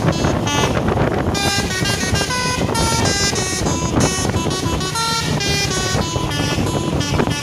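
Multi-tone 'telolet' bus horn playing a quick tune of short notes that step between pitches several times a second, over a steady low rumble.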